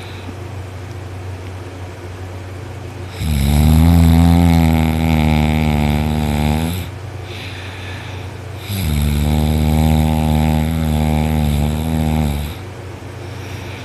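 A man snoring loudly in his sleep while lying on his back: two long, deep, rasping snores about two seconds apart.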